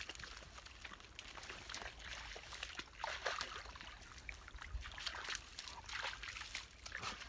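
A dog wading through shallow pond water, with irregular small splashes and trickling as its legs move through the water.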